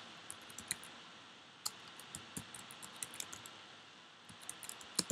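Faint, irregular keystrokes on a computer keyboard as an email address is typed, with a short pause and then a louder keystroke near the end.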